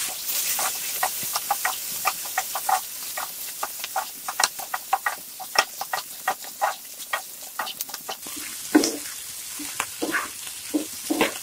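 Wooden spatula stir-frying beef, onion and capsicum in a hot frying pan: a steady high sizzle under rapid, irregular clacks and scrapes of the spatula against the pan.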